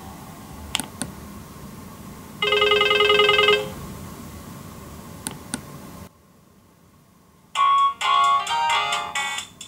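Nokia 1600 handset previewing its ringtones through its small speaker as the list is scrolled, with sharp keypad clicks between tones. About two and a half seconds in, a short trilling ring sounds for just over a second. Near the end a quick electronic melody of many short notes begins.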